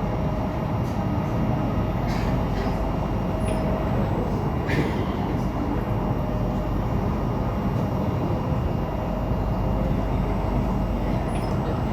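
Interior running noise of a C751B metro train in motion: a steady rumble of wheels on rail and motors, with a few faint clicks about 2 and 5 seconds in.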